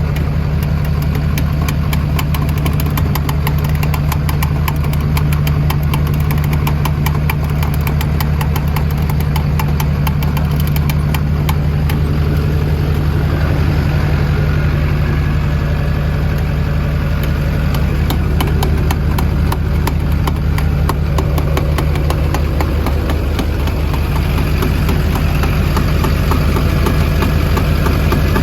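A vehicle's steady low drone with a fast, even ticking running through it. The owner suspects it may be the noise of bad wheel bearings.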